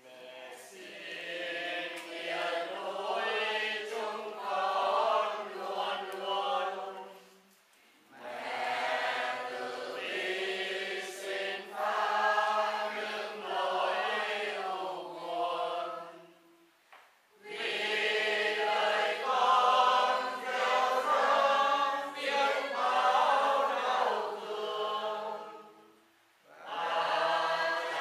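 A group of voices singing a Catholic funeral chant in long phrases of about eight seconds, each followed by a short pause for breath.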